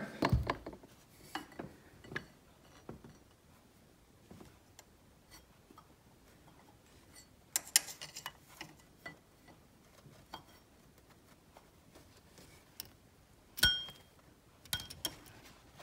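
Light metallic clicks and clinks of a hand wrench against engine fittings, scattered and sparse, with a cluster of them about halfway and a sharper clink that rings briefly near the end.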